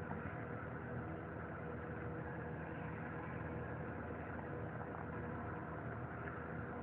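A steady low mechanical hum with several held tones, unchanging throughout.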